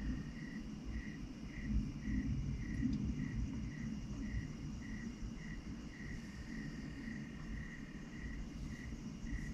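A cricket chirping steadily, with short even chirps at about two a second, over a low rumble.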